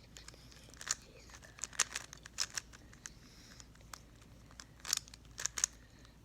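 Rubik's cube being turned by hand, its plastic layers clicking and clacking in quick, irregular turns. The louder clacks come about a second in, around two seconds in, and near five seconds in.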